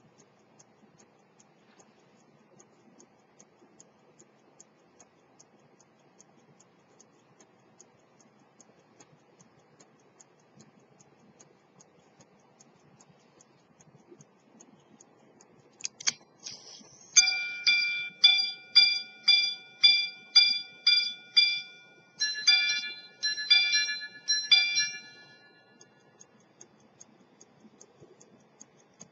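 Early-1900s Swiss quarter-repeater pocket watch movement ticking steadily. About halfway through, the repeater is set off with a click and whirr and rings out on its steel gongs: a run of single hour strikes, then three quick double strikes for the quarters. The repaired and re-tuned repeater is striking properly.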